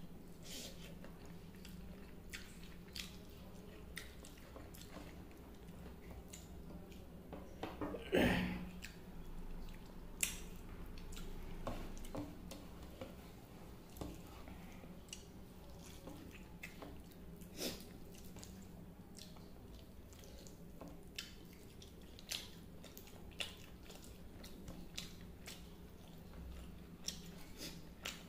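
A person eating rice and fish curry by hand, chewing close to the microphone, with many short wet mouth clicks and smacks and one louder mouth sound about eight seconds in. A steady low hum runs underneath.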